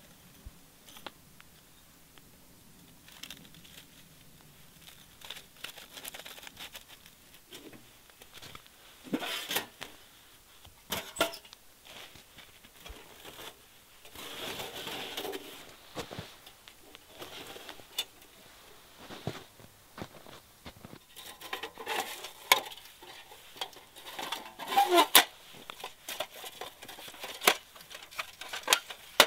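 Scattered sharp metal clacks and clicks with bursts of rustling as a folding titanium mini wood stove is handled and taken apart, its panels knocking together; the loudest clacks come in a cluster about three-quarters of the way through.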